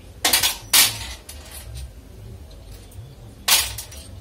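Metal clanking against a steel workbench during the teardown of an automatic transmission: three sharp clanks, two close together in the first second and a third about three and a half seconds in.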